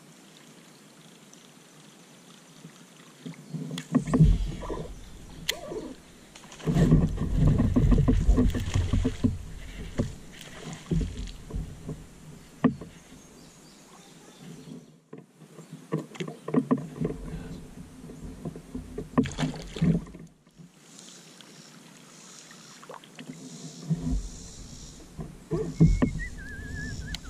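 Knocks, bumps and rubbing from a plastic fishing kayak and the angler's baitcasting rod and reel as he reels in and casts, coming in bursts of a few seconds with quieter stretches between.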